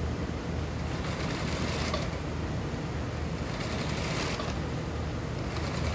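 Industrial sewing machine running steadily, stitching a seam through suit-jacket fabric.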